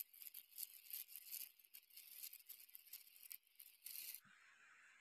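Aluminium foil crinkling and rustling in quick, crisp crackles as a foil-wrapped packet of rice is unwrapped by hand. The crackling stops about four seconds in, leaving a faint steady hiss.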